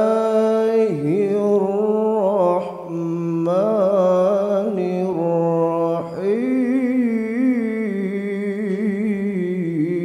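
A man chanting an Arabic recitation into a handheld microphone in long, melodic held notes that slide slowly between pitches and waver, with one short break for breath partway through.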